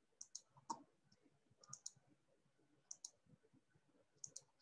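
Faint computer mouse clicks, mostly in quick pairs, about one group a second.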